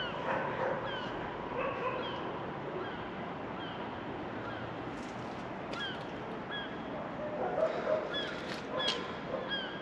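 Short, high animal calls that dip in pitch, repeated every half second or so, over a steady background rumble, with a few sharp knocks partway through and near the end.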